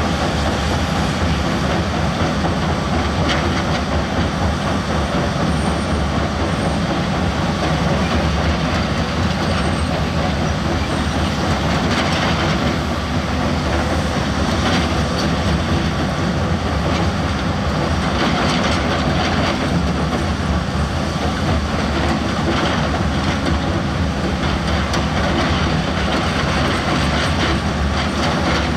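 Diesel engine of a heavy earthmoving machine running steadily under load, with a few faint knocks and clanks of metal.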